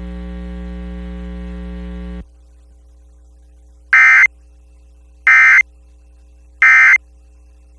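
A steady buzz for about two seconds, then the Emergency Alert System end-of-message signal: three short, high-pitched digital data bursts from the EAS encoder, about 1.3 seconds apart, marking the end of the alert.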